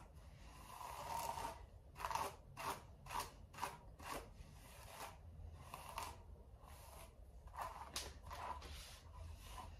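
Wet Brush detangling brush pulled through long hair in about a dozen short, irregular strokes, each a faint crackling swish of bristles through hair.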